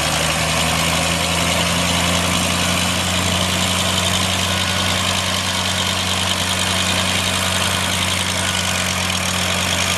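Engine of a Ram track drill and compressor running steadily at idle, a constant low hum with a steady hiss over it.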